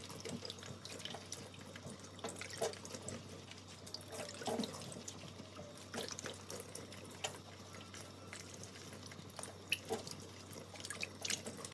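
Quiet room tone with scattered faint clicks and light taps, irregular and spread across the whole stretch, with a few slightly louder ticks near the end.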